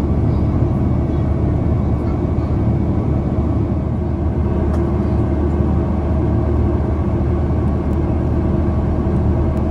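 Steady, loud cabin drone of an Airbus A330-900neo in flight: its Rolls-Royce Trent 7000 engines and rushing airflow, heard from a window seat, with a low, unchanging hum underneath.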